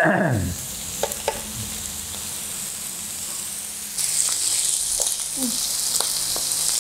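Pork belly slices sizzling on a hot griddle pan, with a few light clicks of tongs and chopsticks on the plate. The sizzle turns louder and brighter about four seconds in. A brief sound sliding down in pitch at the very start is the loudest moment.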